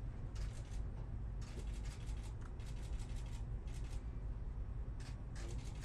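Steady low rumble of a moving passenger train, heard from on board, with repeated short bursts of rapid clicking or rattling.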